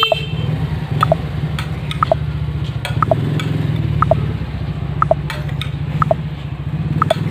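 Countdown timer ticking once a second, each tick a short two-note blip, with light clinks of a metal spoon against a plate and a steady low hum underneath.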